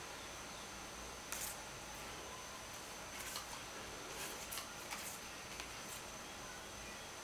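Faint, scattered soft scratches and light taps of a paintbrush on watercolour paper and a paint tray, over a faint steady high-pitched whine.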